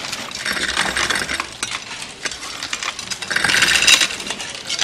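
Clatter of dishes and cutlery in a busy canteen: a dense run of small clinks and knocks, getting louder near the end.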